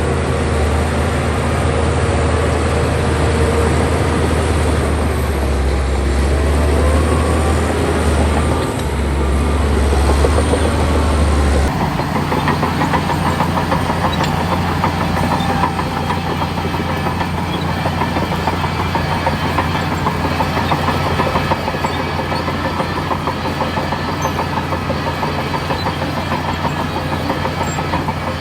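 Heavy diesel engines of earthmoving machinery running steadily under work. About twelve seconds in the sound changes abruptly to a different diesel drone with a fast, even clatter.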